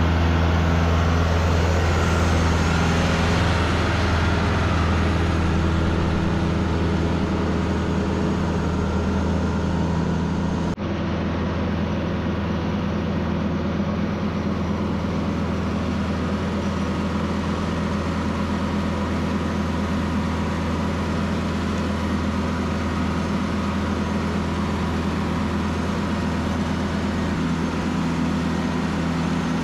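A vehicle engine running steadily with a low drone, with a brief sudden break about eleven seconds in before the same steady running carries on.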